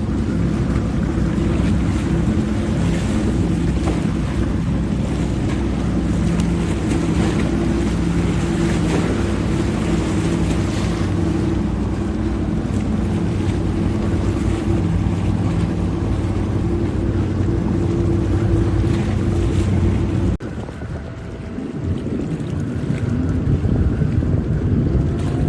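Speedboat engines running at a steady drone, with wind buffeting the microphone. Near the end the sound drops suddenly, then a higher engine tone rises.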